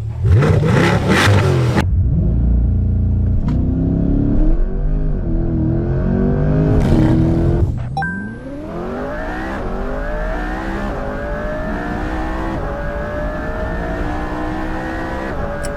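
A high-performance car engine revs and holds against launch control for several seconds, the revs bouncing. At about eight seconds the car launches and the engine note climbs steadily through the gears under hard acceleration.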